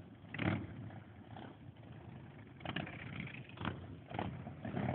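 Cruiser motorcycle engines running as several bikes ride past close by, with short swells as each passes and a stronger low engine rumble building near the end.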